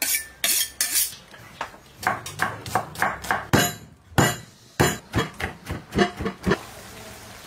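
Cleaver chopping on a wooden cutting board: a run of sharp, irregular knocks, a few a second, that stops about six and a half seconds in.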